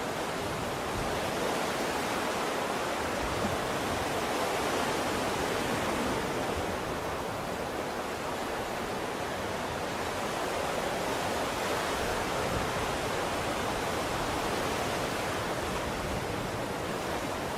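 Ocean surf: a steady wash of waves with slow, gentle swells.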